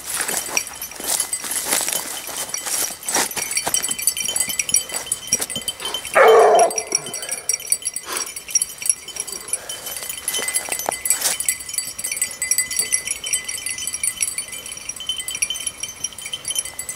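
Basset bleu de Gascogne hound giving tongue once, a single loud bay about six seconds in, as the pack works a hare's scent line. It sounds over a continuous high ringing and scattered light clicks.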